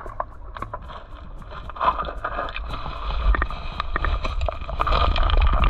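Flowing river water with wind buffeting the microphone, a steady rushing hiss over an uneven low rumble, with scattered small clicks and splashes.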